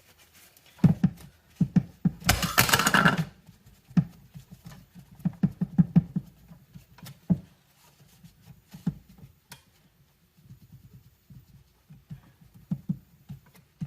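Scattered clicks, knocks and handling noises from hand work on a chainsaw's crankcase, with one louder scrape lasting about a second, about two seconds in.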